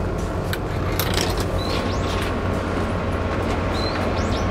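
Steady low mechanical hum, with a few light clicks about a second in and several brief high chirps.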